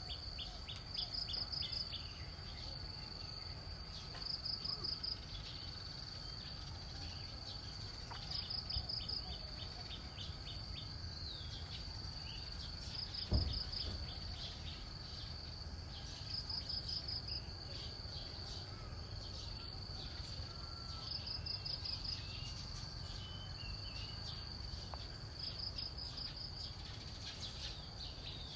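Insects shrilling in a steady high-pitched drone, with a pulsed trill that repeats about every four seconds and a few faint bird chirps. A single low thump about halfway through.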